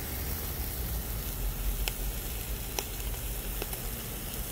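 Pork pieces sizzling on a round grill grate, a steady hiss with a few sharp pops of fat about two, three and three and a half seconds in.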